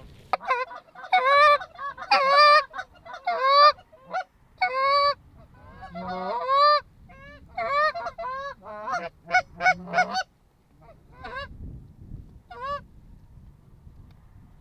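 Geese honking and clucking in a rapid, loud series of rising-then-falling notes, thinning out after about ten seconds: the calling of a goose flock working over a decoy spread.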